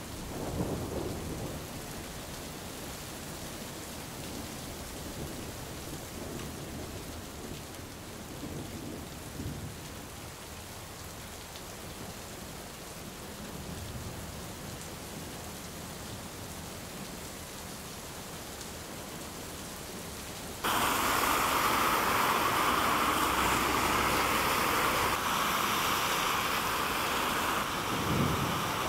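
Heavy rain, a steady hiss, on flooded streets. About two-thirds of the way in it cuts to a louder, brighter rush of water as a car drives through the floodwater throwing up spray, with a brief low rumble of the passing car near the end.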